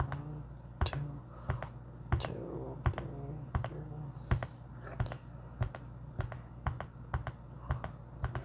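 Teenage Engineering PO-33 K.O! pocket operator's buttons clicking as they are pressed, one or two presses a second with some quick double taps, while a step pattern is programmed.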